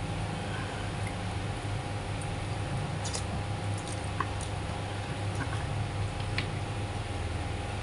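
A person eating soup from a plastic bowl with a metal spoon: a few faint clicks of the spoon and mouth sounds, over a steady low hum.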